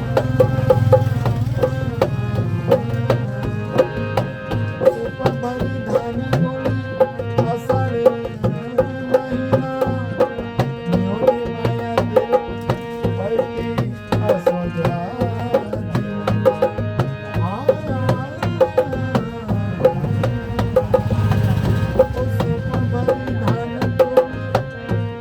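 Instrumental folk music: a hand drum playing a steady, busy beat under held melody tones.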